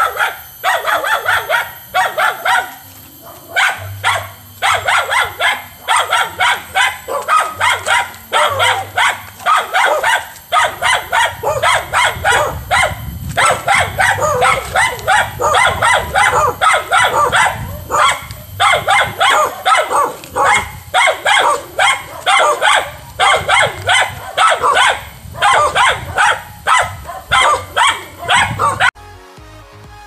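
An angry dog barking rapidly and without pause, several loud barks a second. The barking stops suddenly near the end.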